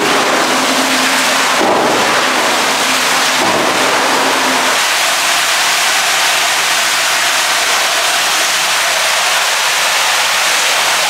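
Water running hard from a tap, a loud steady hiss. A faint hum runs under it for about the first five seconds.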